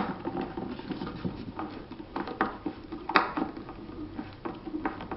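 A Phillips screwdriver driving a wood screw into a pre-drilled wooden nest box, with irregular small clicks and scraping creaks of screw and wood, and a sharper click about three seconds in.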